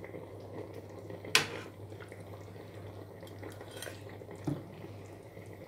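A metal spoon stirring a thick stew in a saucepan, clinking against the pot, with one sharp clink about a second and a half in and a few lighter taps near the end.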